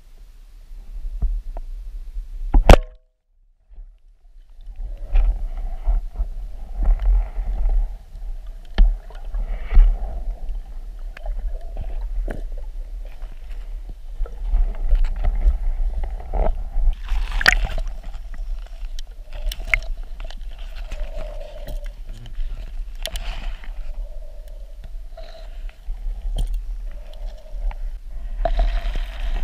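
Underwater sound picked up by a diving camera as a spearfisher moves through lake weeds: a steady low rumble of water with scattered clicks and knocks. A sharp click a few seconds in is followed by a brief dropout, and louder rushes of water come about halfway through and near the end.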